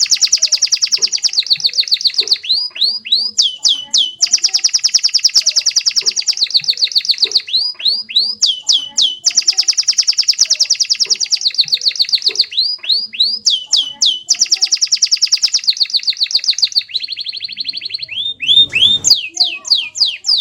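Domestic canary singing: long, rapid trills of repeated high notes, broken every second or two by quick falling sweeps.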